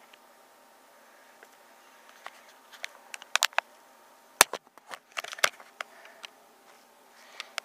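Handling noise from a handheld camera: scattered light clicks and taps, bunching together past the halfway point with one sharp click a little after four seconds, over faint room hiss.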